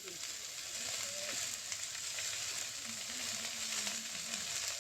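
Chopped giant taro sizzling as it fries in hot oil in a kadai, a steady frying hiss.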